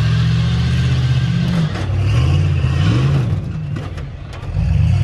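Off-road rock-race vehicle's engine revving as it climbs, its pitch holding steady, then dipping and rising again. It eases off about four seconds in and picks back up near the end.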